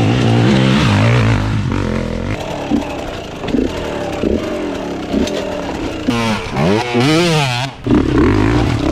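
KTM enduro dirt bike engines running hard on a steep rocky climb. Around six seconds in, the revs swing rapidly up and down in quick blips, then cut out for a moment before the running picks up again.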